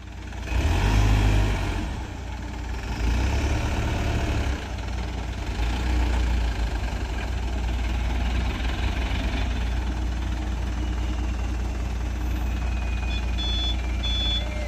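Mitsubishi Fuso Canter truck's diesel engine revving up twice in the first few seconds, then running steadily under load. Regular reversing beeps start near the end.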